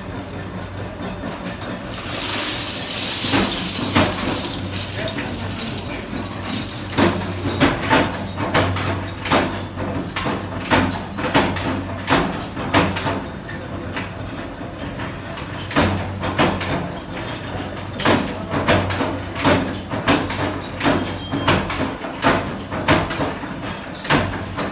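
Flywheel-driven power press with a rotary dial table, forming aluminium bulb holder shells: the motor hums steadily while the press strikes in a regular beat of about two strokes a second. A few seconds of high, hissing jingle come near the start.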